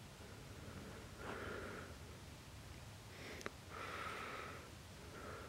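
Faint close breathing: two soft breaths, about a second in and about four seconds in, with a small click between them.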